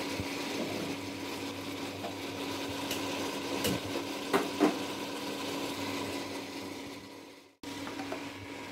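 Spatula stirring and scraping whole lentils and spices in a pot, with a few sharp clicks against the pot about three to five seconds in, over a steady hum. The sound breaks off for a moment near the end.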